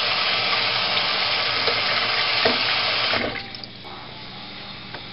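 Kitchen faucet running into a stainless steel sink as hands are washed under the stream. The water is shut off a little over three seconds in, and the sound drops away.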